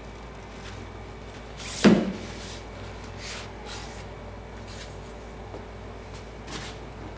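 Cardboard shoebox and lid being handled: one sharp knock about two seconds in, then a few faint scrapes and rustles.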